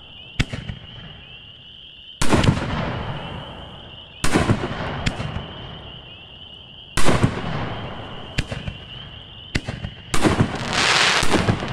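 5-inch canister aerial shells being fired in sequence from a mortar rack: four loud booms two to three seconds apart, each rolling away slowly, with smaller sharp cracks between them. The last boom runs into a second or so of dense crackling.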